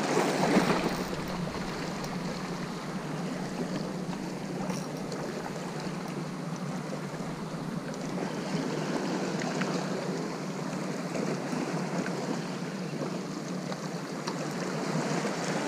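Steady rushing noise of sea surf and wind on the microphone, with a louder surge about half a second in.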